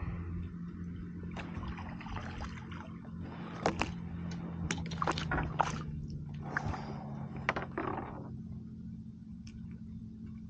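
A hooked fish splashing and thrashing at the water's surface beside a kayak as it is reeled in: a run of sharp splashes from about three and a half to eight seconds in, over a steady low hum.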